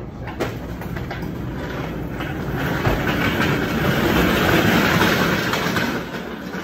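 Tall stack of plastic bakery trays rattling on a wheeled dolly as it rolls over a hard floor, growing louder to a peak about five seconds in and then dropping away. A sharp knock about half a second in.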